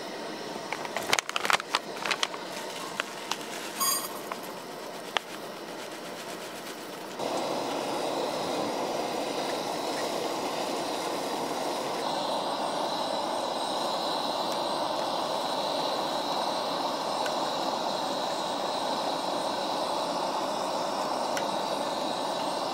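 Metal coffee gear clinking and tapping against a stainless steel mug several times. About seven seconds in, a steady rushing hiss starts abruptly and carries on unchanged.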